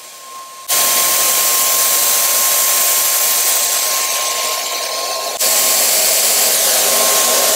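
Wagner Flexio 5000 HVLP paint sprayer's turbine switching on under a second in and running loud and steady, pushing air through the hose and spray gun. It breaks off for a moment just past five seconds in, then runs on.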